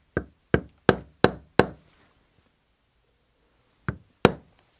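A 1.5-pound maul striking a basketweave stamping tool into cased leather on a stone slab: five sharp knocks at about three a second, a pause, then two more near the end.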